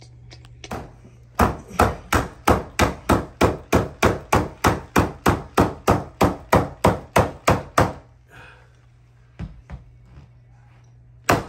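Corded electric carpet stapler firing staples into a carpeted stair riser in a fast even run of sharp shots, about four a second for some six seconds. A few single shots follow near the end.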